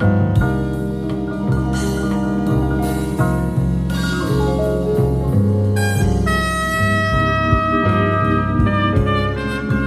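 Live small-group jazz with a vibraphone and a rhythm section. A trumpet comes in with long held notes about six seconds in.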